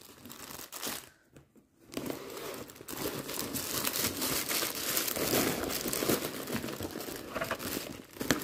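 Clear plastic sleeve and mesh vinyl zip pouch crinkling as a cross-stitch project is handled and slid into the pouch. There is a brief pause about a second in, then steady crinkling for most of the rest.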